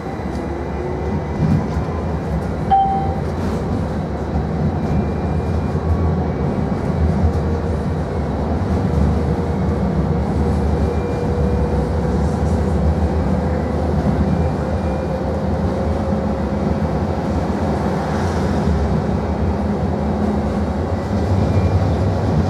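SL tram running, heard from inside the passenger cabin: a steady low rumble of wheels on rails and running gear, with a faint drawn-out whine rising slightly in pitch partway through.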